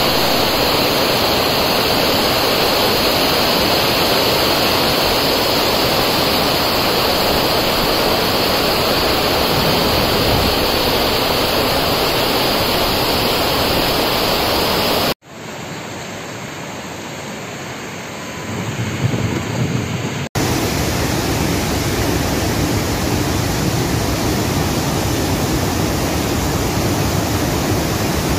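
Heavy monsoon rain pouring down in a loud, steady hiss. About halfway through it cuts to a quieter stretch where a low rumble builds. Then water spilling over a dam's overflow gates rushes steadily.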